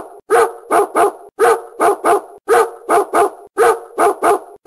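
A dog barking in quick sets of three, one set about every second, repeating at even spacing.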